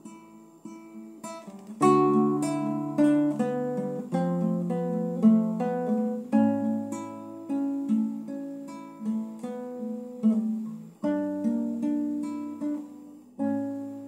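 Acoustic guitar played with the fingers, an instrumental passage of plucked and strummed chords with no singing. It starts softly, then a louder chord comes in about two seconds in, followed by more chords about one a second.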